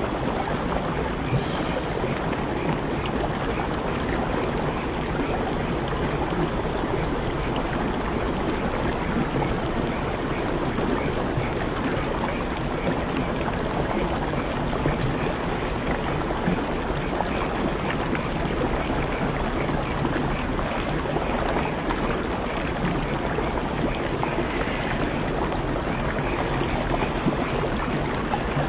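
Shallow stream rushing over rocks, a steady even noise of running water, with splashing from a small RC crawler's wheels driving through it.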